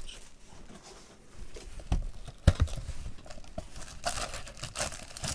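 A cardboard Topps Match Attax Chrome card box being handled and opened: two sharp knocks about two seconds in, the second the loudest, then the cardboard lid pulled and torn open with rustling near the end.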